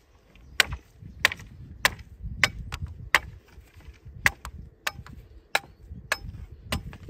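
A hand tool striking wood in steady, repeated blows, about ten sharp strikes roughly every 0.6 seconds, with a short break about halfway through.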